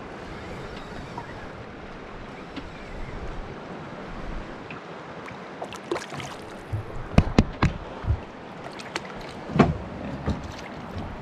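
Water lapping against a small boat's hull, then a small hooked fish splashing at the surface in a cluster of sharp splashes past the middle as it is reeled up to the boat.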